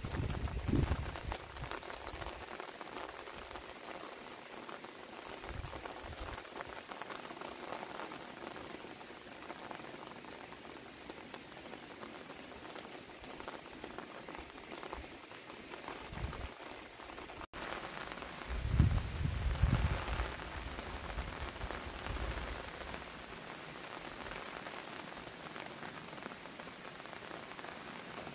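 Steady rain falling, with a loud low rumble of wind on the microphone for a couple of seconds about two-thirds of the way through.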